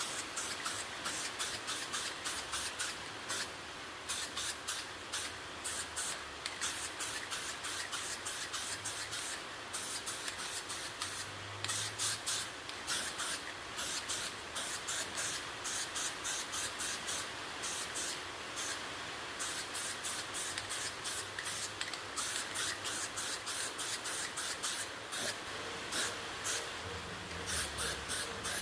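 Hand sanding of a plastic fairing panel: quick back-and-forth strokes of sandpaper, about three a second, in runs with short pauses between them.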